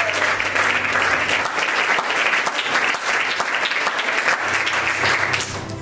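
Congregation applauding, a dense steady patter of many hands clapping that dies away near the end.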